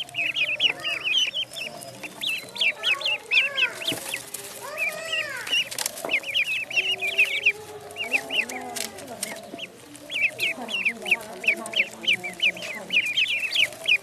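Ducklings peeping: a dense stream of short, high peeps, several a second, with lower, longer calls from another bird mixed in through the middle.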